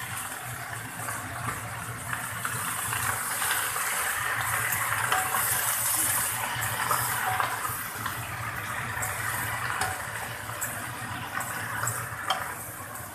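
Chopped leafy greens sizzling in hot oil and garlic in a pan as they are stir-fried, a wooden spatula tossing them, with light scrapes and clicks of the spatula toward the end.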